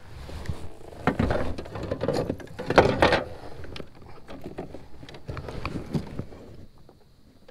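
Irregular knocks and clatter of plastic gear handled in a plastic fishing kayak, as a plastic fish-measuring board is lifted and stowed, bumping against the hull. The handling is loudest about three seconds in and dies down near the end.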